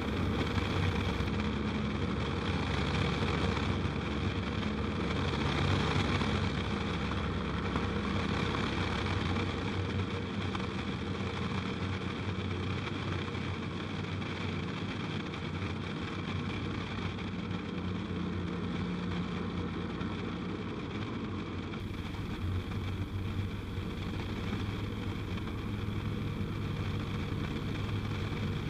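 Light aircraft's piston engine and propeller running steadily at cruise power in level flight, a constant drone with a broad rush of airflow and only small shifts in pitch.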